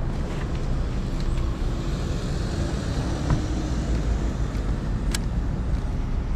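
Steady low engine rumble, with a sharp click about five seconds in.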